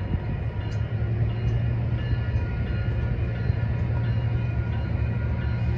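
A passenger train's diesel locomotive running steadily, a deep, even hum with faint steady whines above it.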